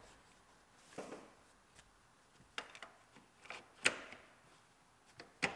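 Plastic trim caps being pressed and snapped over the rear seat's bolted mounting feet: a handful of scattered light clicks and knocks, the loudest about four seconds in.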